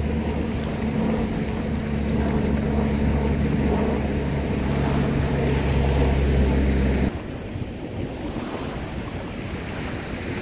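Wind on the microphone and surf washing on a sandy beach, with a steady low hum under them that cuts off abruptly about seven seconds in.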